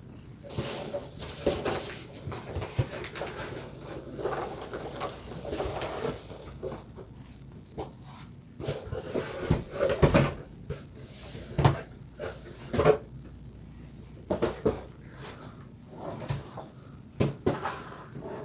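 Hand rummaging through foam packing peanuts in a cardboard shipping box, with irregular rustling and scattered knocks. Partway through, a boxed kit is pulled out and the cardboard knocks and scrapes against the box.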